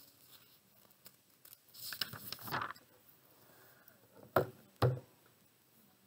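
Pages of a school reading anthology being turned by hand: a paper rustle lasting about a second. It is followed by two short knocks about half a second apart as the book is handled.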